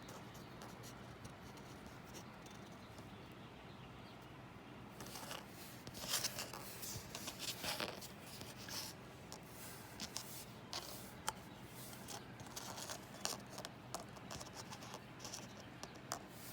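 Faint rustling and small clicks of soft plastic 1/72-scale figures and their packaging being handled, starting about five seconds in, with quiet room hiss before that.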